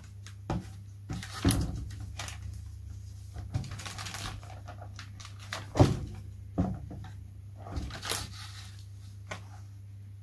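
Handling sounds from a hand-held covering iron being worked over plastic iron-on film on a wing: the film rustles and crinkles, with scattered taps and knocks, the loudest about six seconds in. A steady low hum runs underneath.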